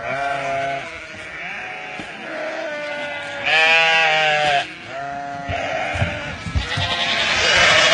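A large flock of sheep bleating, many calls one after another and overlapping, with the loudest, longest bleat about three and a half seconds in.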